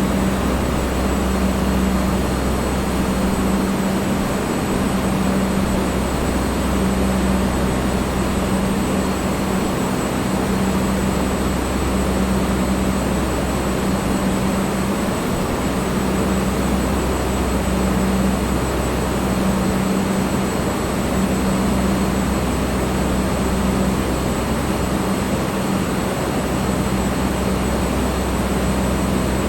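Electric fan running steadily: an even rush of blown air with a low motor hum that swells and fades slightly every second or so.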